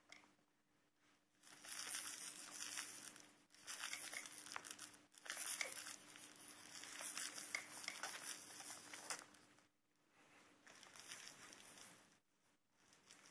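Crinkly plush monkey toy hanging from a baby play gym, swatted and grabbed by an infant, rustling and crinkling in several bursts, then more softly near the end.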